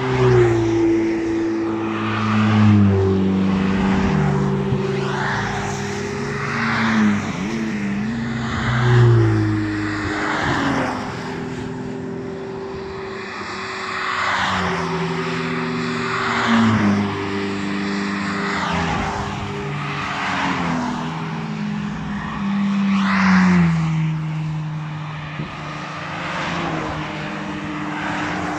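A line of Ferrari sports cars driving past one after another, each engine note dropping in pitch as the car goes by. Tyre noise from the wet asphalt swells with each pass.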